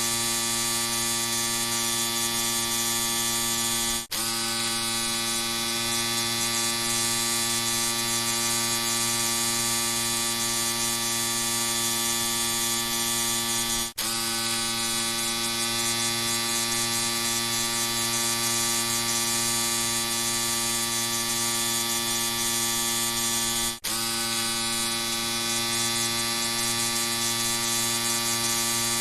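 Electric shaver buzzing steadily at one even pitch, with three very short dropouts about ten seconds apart.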